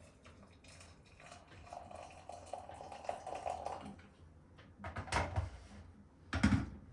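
Kitchen utensil work: a few seconds of rapid scraping and clinking against a bowl or pan, then two solid knocks of dishware being handled.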